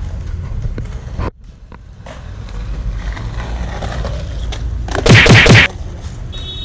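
Skateboard wheels rumbling on concrete pavement, then a loud clatter of the board slamming down onto the concrete close by, lasting under a second, about five seconds in.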